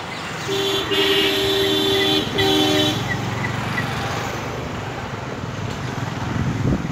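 Vehicle horn honking in three blasts, the middle one longest, over steady street traffic noise.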